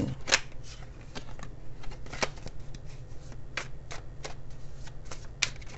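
A deck of tarot cards being shuffled by hand: irregular soft card clicks and slaps, with a few sharper snaps every second or two.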